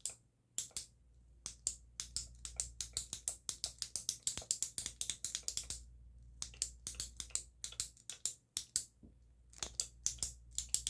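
Fast runs of sharp, crisp clicks and ticks made close to the microphone, several a second, as an ASMR trigger. They pause briefly about six seconds in and again near nine seconds.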